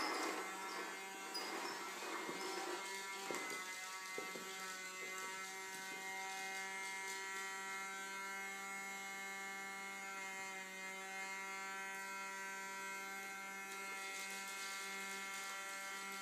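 A small vacuum cleaner's motor running with a steady hum, and a couple of light knocks about three and four seconds in.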